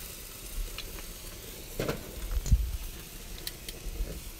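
Burgers, steaks and chicken sizzling on a gas grill's grates, a steady hiss, with a couple of dull knocks about halfway through.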